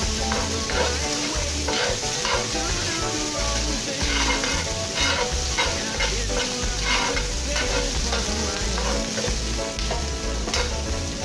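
Chopped onions and shallots sizzling in oil in a cast-iron skillet, stirred with a utensil that scrapes and knocks against the pan at irregular moments.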